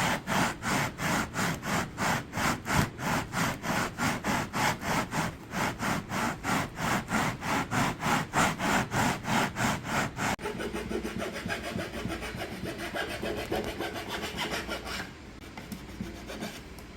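A hand tool rasping back and forth on wood in quick, even strokes, about four a second. About ten seconds in the strokes blur into a faster, finer scraping that grows fainter a few seconds before the end.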